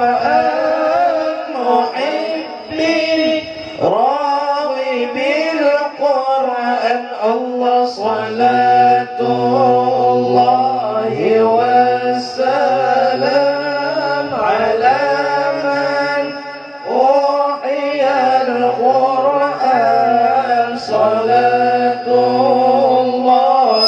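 Men's voices chanting an Islamic sholawat together through microphones, a slow ornamented melody with long held and gliding notes. A low steady hum runs beneath the singing from about a third of the way in until a few seconds before the end.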